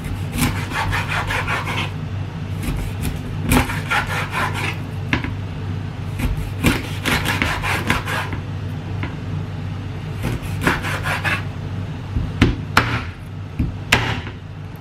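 Chinese cleaver cutting a large raw fish into steaks on a wooden cutting board: several bouts of quick back-and-forth scraping strokes as the blade saws through flesh and bone, with a few sharp knocks of the blade on the board near the end.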